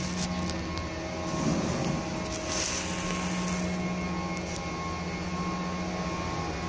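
Steady electrical or mechanical hum with a low drone and fainter higher tones, broken by a brief hiss about two and a half seconds in.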